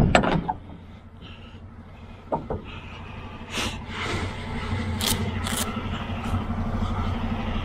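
A loud metal bang right at the start as the trailer's rear swing door is swung back, then a semi truck's diesel engine idling steadily, growing louder about halfway through, with a few scattered scuffs and clicks.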